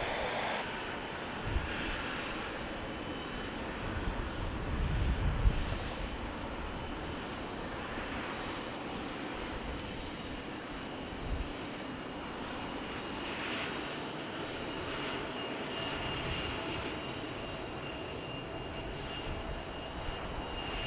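Bombardier CRJ regional jet's twin rear-mounted turbofans at taxi power: a steady jet hiss with a thin whine, and a brief swell of low rumble about five seconds in.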